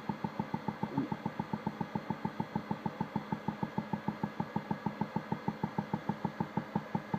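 Hydraulic cable puller of a pipe-bursting rig running, with a steady rapid knocking of about six or seven beats a second, as it pulls the bursting head through the old sewer line.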